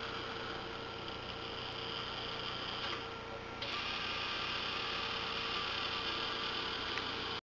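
Small pan-tilt gear motors of a homemade azimuth-elevation antenna rotor running with a steady hum as the arm swings, louder from about three and a half seconds in. The sound cuts off suddenly near the end.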